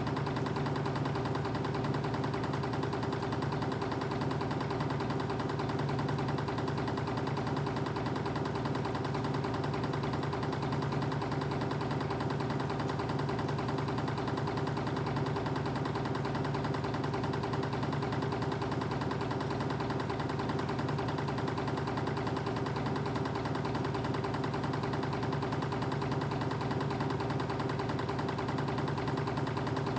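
Spring-wire machinery with a reciprocating wire uncoiler running steadily: an even mechanical hum with a low drone that holds without change.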